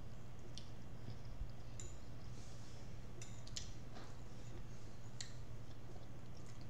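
Forks clicking and clinking lightly against dinner plates every second or so, over a steady low hum.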